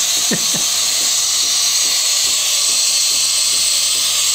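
Gaggia Magenta Milk fully automatic coffee machine frothing milk into a glass: a steady, loud hiss of steam and aerated milk from the spout, with a faint rhythmic pulsing underneath about three times a second.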